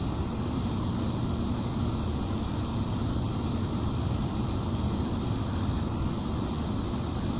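Steady rushing hum of a transmitter's air-cooling blowers running, heaviest in the low end, with no change in speed.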